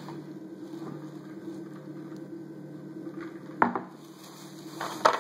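Plastic shopping bag rustling and crinkling as it is handled, with a sharp crackle about three and a half seconds in and another near the end, over a steady low hum.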